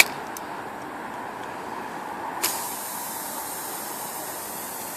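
A sharp click about halfway through, then a steady high hiss of air escaping from the tyre through the nail hole once the nail is pulled out of the puncture.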